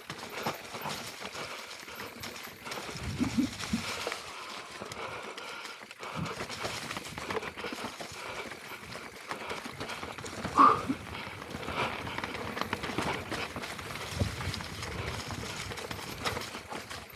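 Mountain bike rolling down a rocky, loose-stone singletrack: tyres crunching over stones and the bike rattling and clattering in irregular knocks. One sharp, louder knock with a brief ring comes about two-thirds of the way through.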